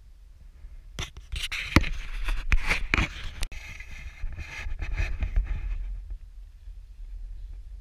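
Action camera being handled and repositioned: scrapes and a series of sharp knocks about a second in, over a steady low wind rumble on the microphone, easing into a softer steady hiss.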